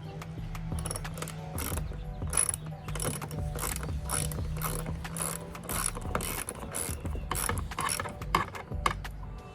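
Hand ratchet clicking in quick repeated strokes, about two or three a second, as fasteners are worked loose.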